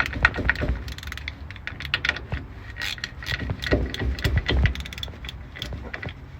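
Hand socket ratchet clicking in short irregular runs with metallic clatter as the differential cover bolts are run down snug against fresh RTV sealant.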